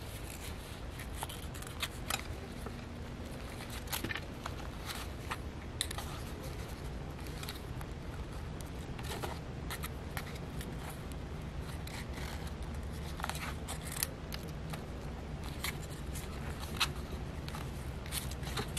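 Hands handling stiff paper journal pages and pulling binding cord through them to tie it off: scattered small rustles, paper scrapes and clicks over a steady low hum.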